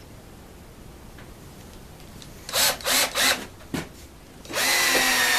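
Power drill driving a 2.5-inch wood screw into the sawbench leg: three short trigger blips, then the motor running steadily for the last second or so.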